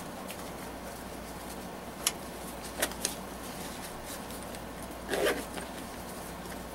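Handling and zipping a small nylon pouch on a backpack: fabric rustle with a few sharp clicks a little after two seconds and around three seconds, and a short zipper rasp about five seconds in.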